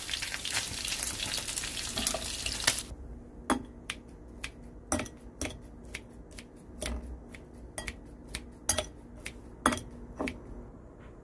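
Pork belly sizzling in a frying pan, a dense steady hiss that stops abruptly about three seconds in. Then a run of sharp snips, roughly two a second, from kitchen scissors cutting the cooked pork into pieces on a plate.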